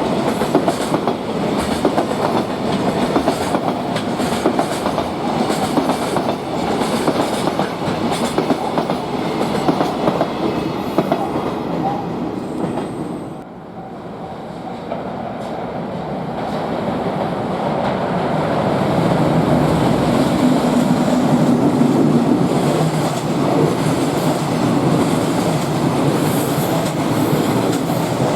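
Freight trains passing at speed: a rumble with the wheels clicking over rail joints. About halfway through the sound drops off abruptly, then builds up again as another freight train comes through, louder than the first.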